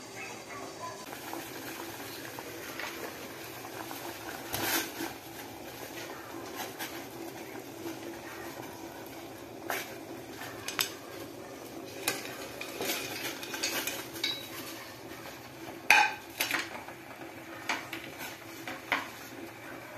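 Vegetables being tipped and pushed off a plate into a stainless steel pot of water, with irregular clinks and knocks of the plate against the pot, the sharpest about three-quarters of the way through. A steady low hum runs underneath.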